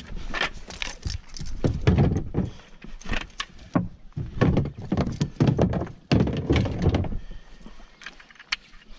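Irregular plastic knocks, clunks and scraping as a kayak launch cart's wheels and gear are handled against a plastic kayak's hull and open hatch, with a quieter stretch near the end.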